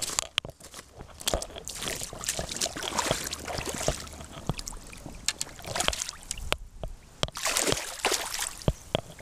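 Footsteps crunching on pebbles, then a landing net sloshing and splashing in shallow river water as a barbel is released from it.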